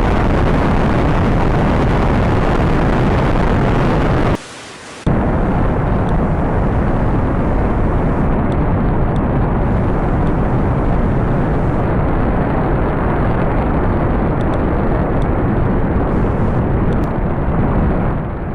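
Rocket launch: the exhaust of the rocket engines makes a loud, steady, deep rumble. It drops out for about half a second around four and a half seconds in, then resumes.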